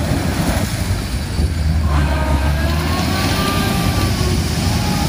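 Toyota Hilux Surf 4WD engine running steadily as the vehicle drives through a shallow river, with water splashing and spraying from its wheels.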